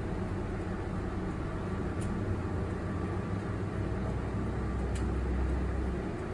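City bus running at low speed through a turn, heard inside the cab: a steady low engine drone that grows stronger about halfway through.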